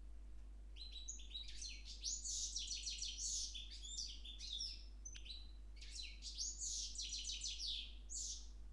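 Mule of a European goldfinch (parva) and a Timbrado canary singing: two long phrases of rapid, high notes with a short pause between them, starting about a second in.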